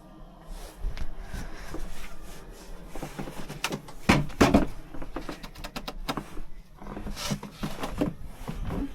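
Irregular knocks, clicks and rustling, the sound of things being handled and moved about.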